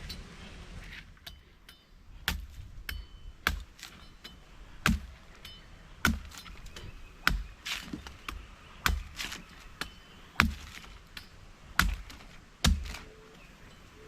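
Machete chopping: about nine sharp chops, roughly one every second and a quarter, with lighter knocks between them.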